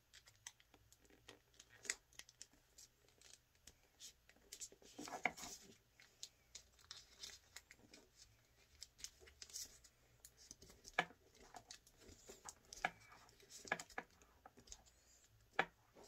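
Faint, irregular rustling and crinkling of colored origami paper being handled, with scattered small crackles as flaps are folded and tucked into the pockets of a paper frog.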